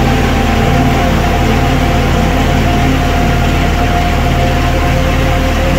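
Heavy rain pouring steadily onto corrugated metal roofs and palm foliage, a dense, even hiss, with a steady low hum and a few held tones underneath.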